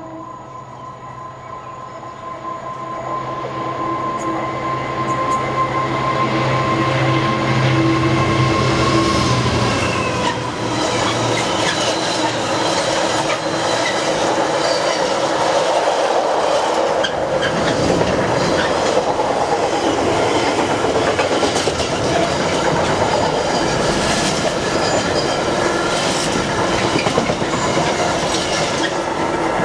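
A Class 66 diesel locomotive's two-stroke V12 engine approaches with a steady drone that grows louder over the first ten seconds and drops slightly in pitch as it passes. A long rake of container flat wagons then rumbles and clatters by, with wheels clicking over the rail joints.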